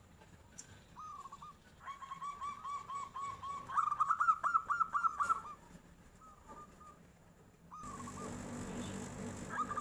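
Zebra dove (perkutut) cooing: repeated short, clear notes in a fast run, loudest about four to five seconds in, with brief single phrases before and after. A steady background hiss comes in suddenly near the end.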